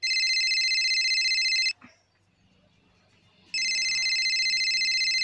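Mobile phone ringtone: an electronic ring of several steady high tones that sounds twice. Each ring lasts just under two seconds, with a quiet gap of about two seconds between them.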